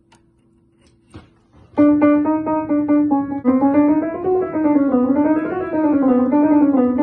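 1951 Poole Piano Co. spinet piano being played to test a note whose worn hammer has just been needled to soften its over-bright tone. About two seconds in, the note is struck repeatedly, about five times a second, then played in quick runs up and down with its neighbouring notes. After needling, the note sounds quite a bit better, though still slightly brighter than the rest.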